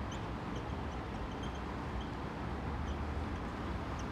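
Whiteboard marker squeaking in short, high, irregular chirps as words are written, over a steady low hum and hiss of room noise.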